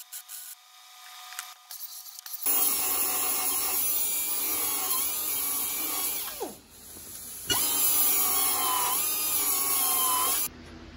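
Angle grinder grinding sheet metal in two runs, its whine bending in pitch as it bites. Between the runs it winds down with a falling whine. Light metal clicking and scraping comes before the first run.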